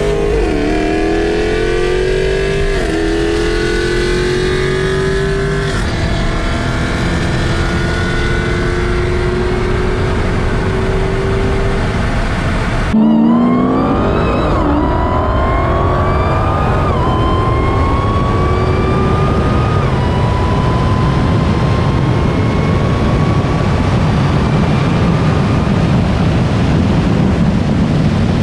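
Tuned performance car at wide-open throttle, engine pitch climbing and dropping back at each upshift, with heavy wind and road noise. About 13 seconds in the sound cuts abruptly to a second full-throttle pull, again rising through several upshifts.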